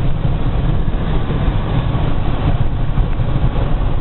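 Steady low rumble of a truck's engine and road noise heard inside the cab while driving.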